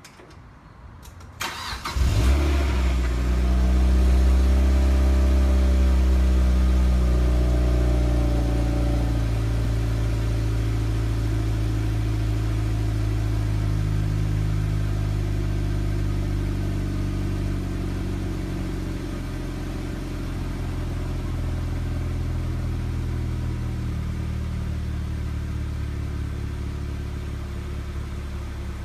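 A 2007 Mazda MX-5's 2.0-litre four-cylinder engine is started about two seconds in and idles through its exhaust, a steady low burble that slowly settles a little quieter over the following seconds.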